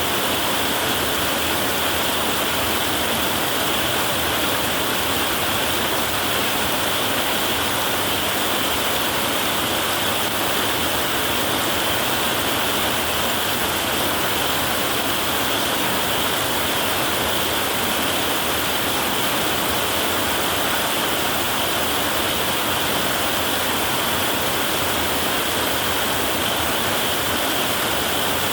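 Heavy rain on a tin roof: a dense, steady hiss of drops on metal that holds an even level, with no thunder.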